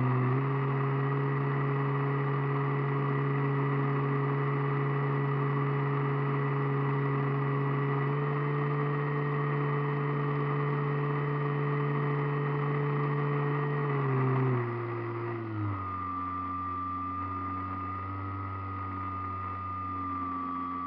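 Radio-controlled airplane's motor and propeller running steadily at cruise power, heard from a camera on board. About two-thirds of the way through, the throttle comes back: the pitch drops and a thin high whine sets in.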